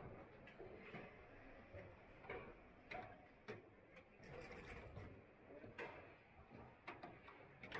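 Faint car assembly-line ambience: light clicks and knocks about once a second over a low rumble, with a brief faint hiss about four seconds in.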